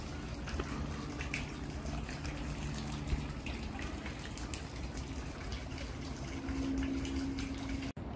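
Water trickling and dripping down a stone grotto wall into a pond, with many small splashes and a steady low hum underneath; it cuts off abruptly near the end.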